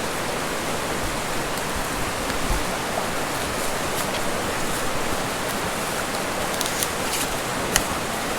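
Steady rushing of a mountain river running over rocks, with a few light clicks near the end.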